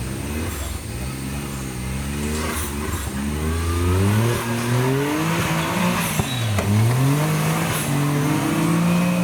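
Modified Suzuki Jimny off-road trial machine's engine revving up and down over and over, its pitch rising and falling, with a few sharp knocks.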